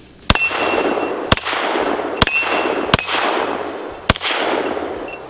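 Robinson Armament XCR semi-automatic rifle firing five shots about a second apart, each followed by a long echo and some by a faint ring. The rifle is cycling again after being packed with snow, with its gas regulator at the lowest setting.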